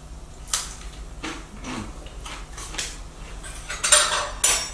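Crunching of a crispy fried fish wonton being chewed, a handful of short crunches over the first three seconds. Then, near the end, two louder clinks of cutlery against a plate.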